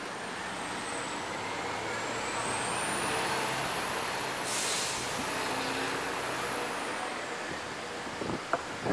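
Street traffic with a large vehicle passing: a steady noise that swells and fades, a thin high whine, and a short sharp hiss of air about halfway through. A few sharp knocks near the end.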